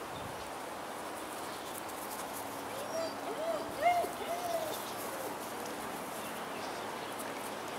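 A run of five or six short animal calls, each rising and then falling in pitch, about three to five seconds in, over a steady outdoor hiss.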